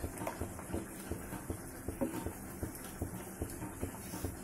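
Metal spoon stirring a thick, simmering spinach-and-corn gravy in a steel pan, with soft irregular taps and plops several times a second.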